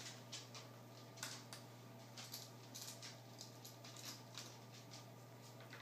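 Faint, scattered clicks and light scrapes of a small screwdriver working tiny screws out of a netbook's plastic screen bezel.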